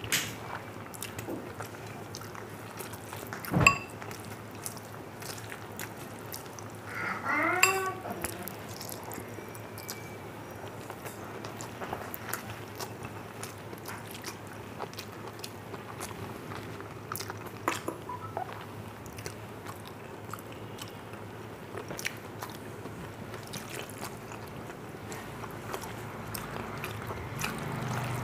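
Eating rice and dal by hand from a steel plate: scattered small wet clicks of fingers working the rice and of chewing. A sharp knock comes about three and a half seconds in, and a brief vocal sound with a wavering pitch near eight seconds.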